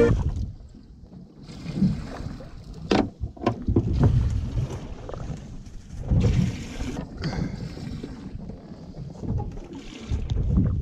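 Water slapping against the hull of a small fibreglass fishing boat, with wind buffeting the microphone, an irregular low rumble. A sharp knock about three seconds in, and a few lighter ones, from fishing gear being handled on deck.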